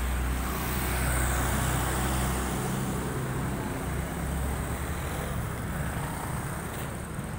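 Road traffic noise with a motor vehicle engine running close by. The sound is loudest about a second in, and the low engine hum fades after about two and a half seconds.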